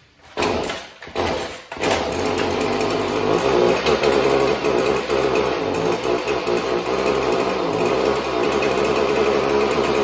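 Stihl two-stroke string trimmer engine starting: two short bursts of firing in the first two seconds, then it catches and keeps running. It is bogging down with little power, a fault the owner traces to a clogged spark arrestor screen in the muffler.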